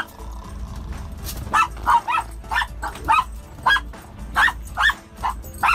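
Small dog barking in a rapid run of short, high barks, two to three a second and some in quick pairs, starting about a second and a half in. A low steady rumble of the moving vehicle's cabin runs underneath.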